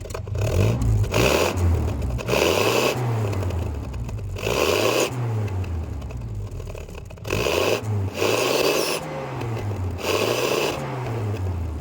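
Toyota Kijang Super's engine blipped about half a dozen times through an aftermarket stainless-steel 'ngorok' exhaust muffler. Each blip rises and falls in pitch with a raspy, snoring growl, the tone this muffler is built to give.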